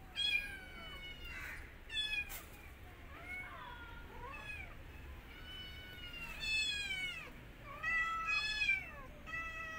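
A kitten meowing over and over, a string of about eight high-pitched meows, most of them falling in pitch, some short and some drawn out.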